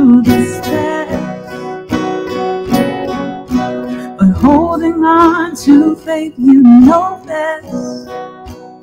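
Acoustic guitar strummed steadily, with a woman singing a slow worship melody over it.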